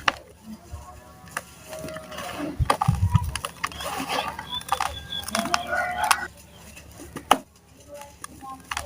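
Dry, dusty sand being crumbled in a tub: a run of crunchy crackles and sharp clicks, densest and loudest in the middle, thinning out near the end.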